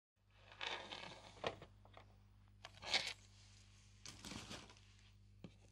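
Close handling noise: rustling and crinkling in a few bursts, the loudest about three seconds in, with a small click near the end, over a faint steady hum.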